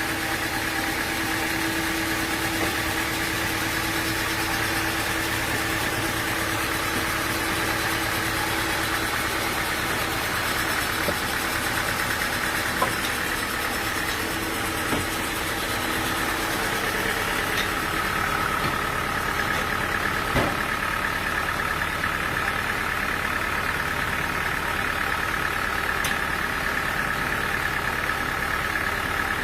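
Sawmill machinery running steadily with a constant whine. The whine shifts to a higher pitch a little past halfway, and there are a few light knocks.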